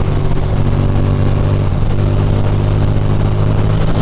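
2006 Ducati Monster 620's air-cooled L-twin engine running steadily while the bike is ridden, with wind and road noise rushing over the microphone.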